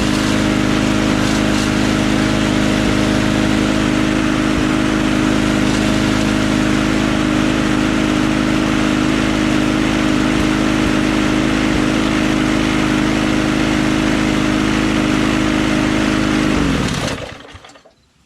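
Briggs & Stratton Quantum single-cylinder engine running a push mower at steady speed, then shut off near the end, its pitch falling as it winds down and stops.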